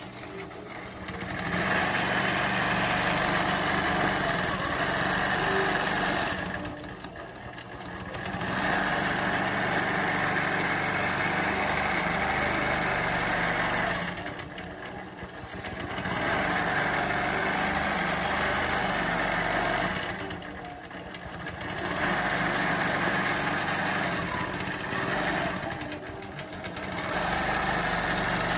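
Innova 26 longarm quilting machine stitching under robotic (Mach 3) control, a steady needle-drive hum and rattle. It eases off for a second or two about every six seconds, then picks up again.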